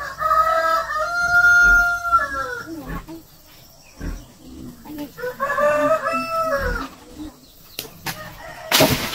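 A rooster crowing twice: a long crow of about two and a half seconds, then a shorter one a few seconds later, each ending on a falling note. A short burst of noise comes near the end.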